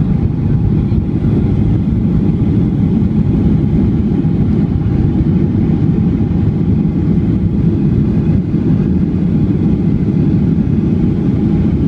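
Steady low rumble of a passenger plane heard inside the cabin during landing: engine and airflow noise, without sudden changes.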